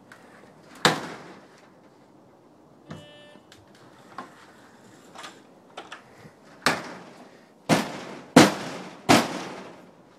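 Sharp clicks and knocks around a front door, four loud ones in the second half, with one short buzzy electronic beep about three seconds in.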